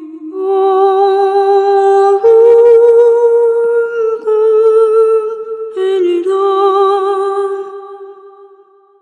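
Sampled female voice from the "Clara's Vocal" Kontakt library singing a slow line of long held notes, stepping to a new pitch every second or two, with a short note about six seconds in, then fading out near the end.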